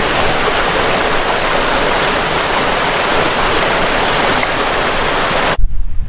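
Small waterfall and rocky stream: a steady, loud rush of falling and running water. It cuts off suddenly near the end, leaving only wind buffeting the microphone.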